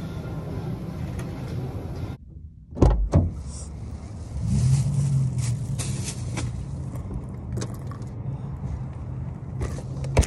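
Two heavy thumps, like a car door shutting, then a car's engine starts and idles with a low steady hum, heard from inside the cabin, with a few light clicks and rustles.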